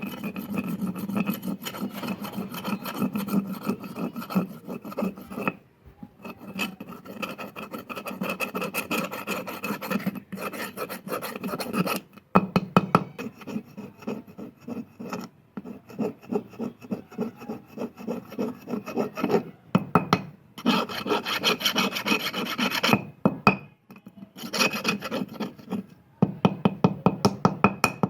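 Quick back-and-forth rasping strokes, made by hand on the rusty steel file during its restoration. They come in runs broken by short pauses, and near the end settle into an even rhythm of about five strokes a second.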